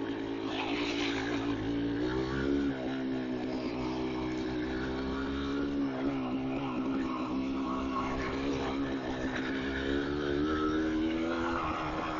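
Yamaha DT200R's two-stroke single-cylinder engine running under way at a fairly steady pitch, with small throttle changes now and then.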